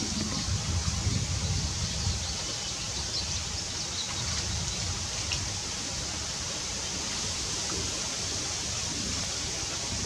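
Steady outdoor ambience of even hiss, with wind rumbling on the microphone during the first couple of seconds and a few faint, short, high bird chirps around the middle.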